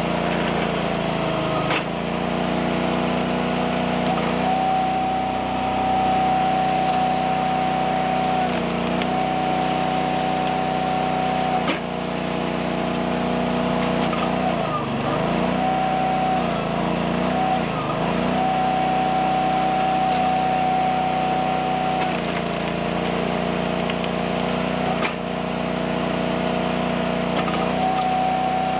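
Eastonmade hydraulic log splitter's engine running with a steady, constant tone while splitting firewood. Its pitch sags briefly twice around the middle as the engine loads up pushing through a round, and there are a few sharp knocks from the machine and the wood.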